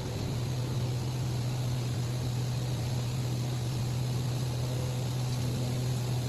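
Steady low hum of running factory machinery over a constant background hiss, unchanging throughout.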